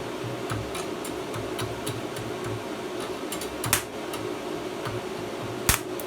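Inverter welding machine humming steadily with its cooling fan running, over scattered faint clicks, with two short sharp knocks, one in the middle and one near the end.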